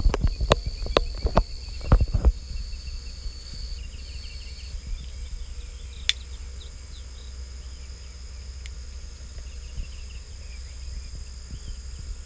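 Crickets trilling steadily in a field, with faint bird chirps through the middle. A run of sharp knocks in the first two seconds is louder than the insects, and the lower of two trill tones stops about five seconds in.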